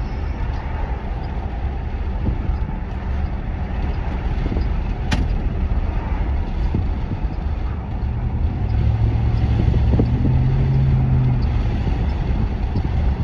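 Inside the cab of a 2009 Chevrolet Silverado 1500 at light throttle: its 5.3 L Vortec V8 runs steadily under road noise, with the transmission freshly repaired. A sharp click comes about five seconds in. The engine drone grows louder about eight seconds in and drops away some three seconds later.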